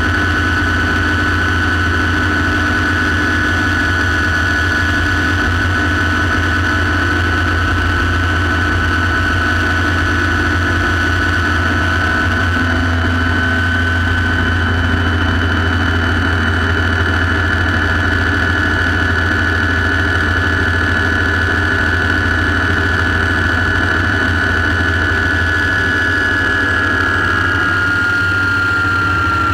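Light turbine helicopter heard from inside the cockpit: a steady high turbine whine over a low drone from the engine and rotor as it comes in and sits running on the ground. Near the end the whine dips slightly in pitch.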